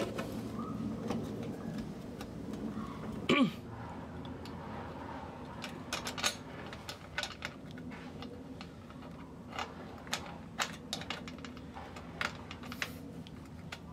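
Irregular light clicks and taps of plastic and metal parts being handled as a scooter's fuel pump and filter assembly is fitted into the fuel tank, with one louder sharp squeak about three and a half seconds in.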